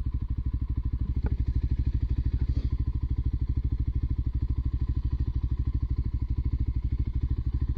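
Motorcycle engine running steadily at low revs, its exhaust pulses even and rapid, with a couple of light knocks about a second and two and a half seconds in.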